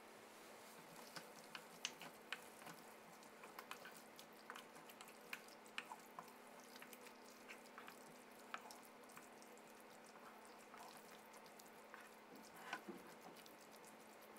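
Faint, irregular taps and wet squishes of a wooden spoon stirring chunky vegetables in tomato sauce in a nonstick frying pan.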